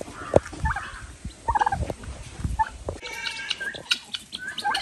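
Domestic turkeys and other farmyard poultry calling: a few short, separate calls, then a busier run of repeated calls from about three seconds in.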